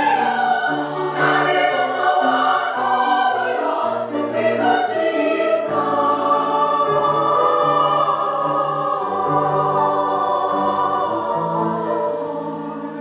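A choir singing with instrumental accompaniment, the voices holding long notes and growing quieter near the end.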